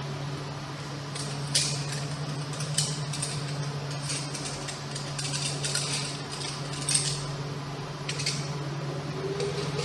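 Scattered light metallic clicks and clinks as the sanding pad head is unscrewed and taken off an oscillating multi-tool, over a steady low hum.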